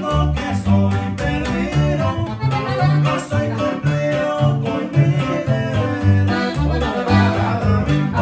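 Live norteño trio playing: accordion, twelve-string bajo sexto and plucked upright bass, the bass alternating low notes in a steady beat, with a man singing over it.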